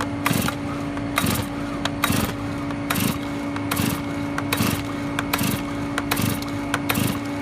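Stihl chainsaw's recoil starter cord pulled over and over, about one pull a second, the two-stroke engine turning over on full choke without catching on its first-ever start. A steady hum runs underneath.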